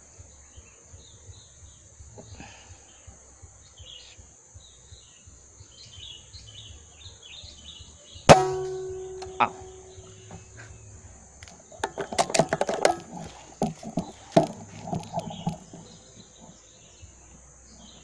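A single air rifle shot about eight seconds in: a sharp crack with a short metallic ring, then a lighter click about a second later. Small birds chirp before the shot, and a burst of rapid knocks and rattles follows a few seconds after it.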